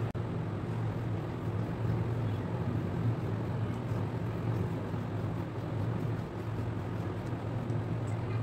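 A steady low hum with a faint hiss over it and no distinct separate sounds.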